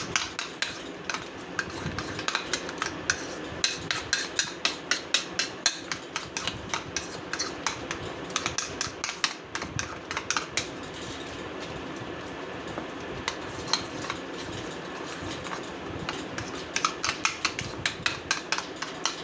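Metal spoon clicking and scraping against a dish while stirring a thick mayonnaise-based shawarma sauce: a rapid run of taps several times a second, easing off about eleven seconds in, then picking up again near the end.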